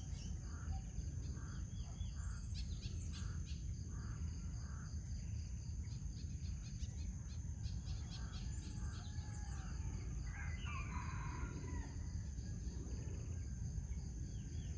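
Dawn birdsong with a rooster crowing once about ten seconds in, over a low steady rumble and a thin high-pitched hum. A bird repeats a short call about twice a second over the first few seconds, and other birds chirp throughout.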